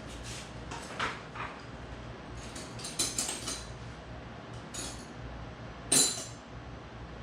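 Metal clinks and clicks of channel-lock pliers working on the gas bottle's regulator fitting, a string of light clinks with one sharper clank about six seconds in.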